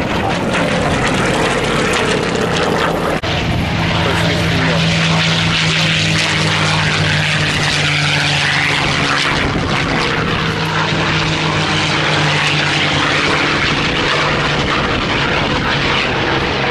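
Piston-engined propeller warbird flying past, its engine giving a steady note over a loud propeller roar.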